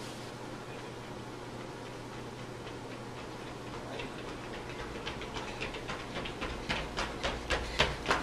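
Running footsteps of sprinters on a hard tiled hallway floor, faint at first about four seconds in and growing louder as the runners approach, about three to four footfalls a second. A low steady hum runs underneath.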